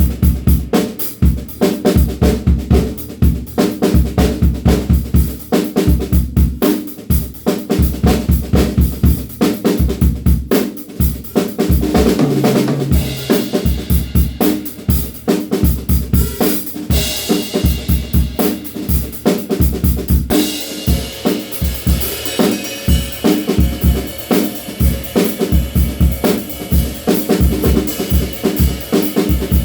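DW Frequent Flyer compact drum kit played in a steady groove: bass drum and snare with hi-hat. A fill comes a little before the middle, a cymbal crashes just past the middle, and cymbals ring on through the last third.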